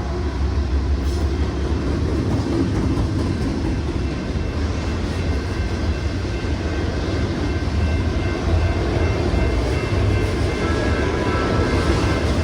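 BNSF autorack freight train rolling past: a steady rumble of wheels on rail, with faint high tones over it late on.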